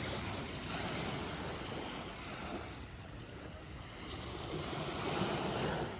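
Baltic Sea waves washing onto the shore, a steady rush that swells to its loudest near the end.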